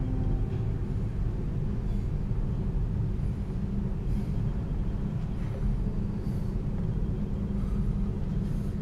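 A steady low rumble with no clear pitch, with a few faint short rustles above it.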